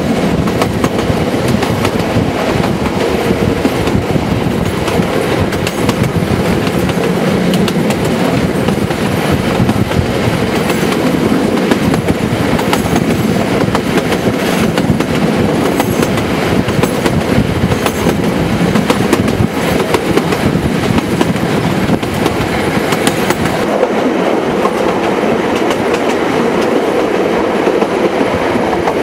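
Passenger train carriages running along the track, heard from aboard: a steady rumble of wheels on rails with irregular clicks as the wheels pass over rail joints.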